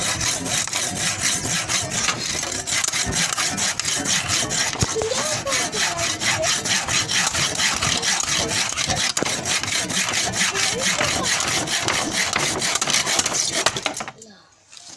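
Hand saw cutting through a wooden batten in quick, even back-and-forth strokes, stopping about a second before the end.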